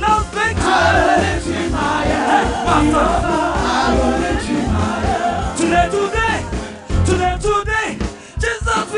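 Live gospel praise-and-worship music: voices singing over a band with a strong bass line.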